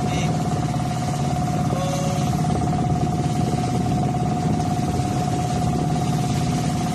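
Fishing boat's engine running steadily: a constant low drone with an even, steady tone above it.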